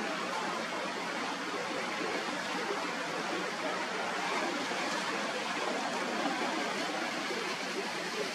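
Steady rushing noise of rough sea and wind, with waves breaking; no boat engine stands out.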